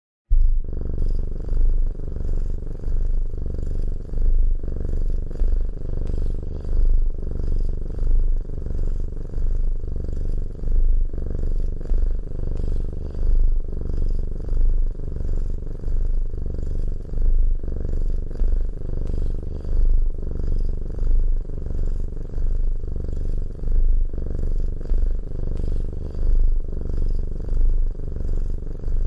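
Domestic cat purring close up, a continuous low rumble that swells and eases in a regular rhythm with each in- and out-breath.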